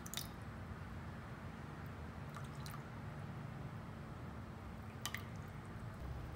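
Water poured from a plastic bottle onto sugar in a stainless steel saucepan: a faint trickle with a few small clicks and drips, near the start, around two and a half seconds in, and about five seconds in.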